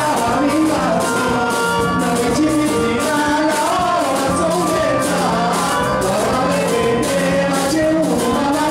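Live Comorian twarab music, amplified: a man sings the melody into a microphone over a band with a steady beat.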